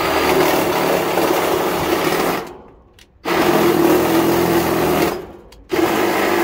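Cordless drill running a step bit through the sheet-metal panel of an air-conditioner condenser, widening a hole toward 3/4 inch. The motor runs in three bursts, about two seconds, two seconds and under a second, with short stops between.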